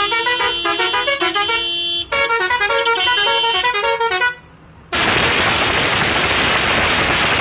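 Six-pipe musical truck horn playing a quick tune of stepped notes, with a short break about two seconds in, stopping a little after four seconds. About a second later, a loud steady hiss starts and runs on.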